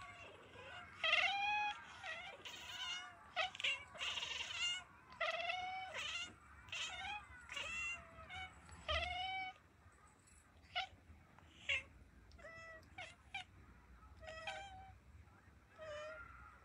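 Several kittens meowing in turn and over one another: a string of short meows that arch up and down in pitch. They come thick and fast for about the first ten seconds, then grow sparser and fainter.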